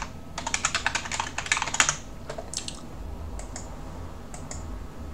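Computer keyboard typing: a quick run of keystrokes lasting about a second and a half, followed by a few scattered single clicks.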